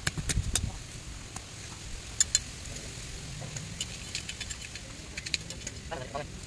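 Machete blows chopping at bamboo and ground: a cluster of knocks at the start, two sharp louder strikes about two seconds in, then scattered lighter ticks. Faint voices come in near the end.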